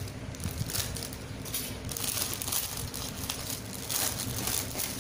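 Packaging crinkling and rustling as it is handled and unwrapped, in uneven crackles.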